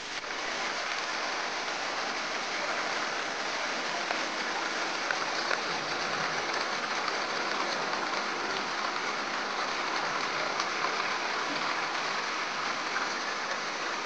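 Steady rush of falling, splashing water, swelling up just at the start and then holding even.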